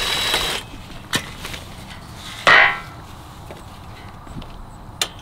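Cordless impact driver running as it backs a bolt out of the wooden base board, stopping about half a second in. A single click follows, then about two and a half seconds in a short, loud clatter of metal as the loosened bolt is worked out beside the aluminium wire channel.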